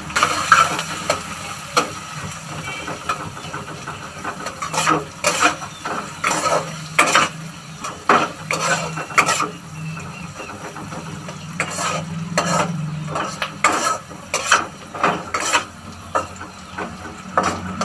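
Slotted spatula stirring sliced onions and green chillies frying in oil in a wok: repeated irregular scrapes and knocks against the pan over a steady sizzle.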